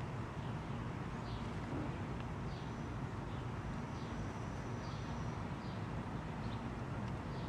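Steady low outdoor background noise, with a bird repeating a short falling chirp about once a second.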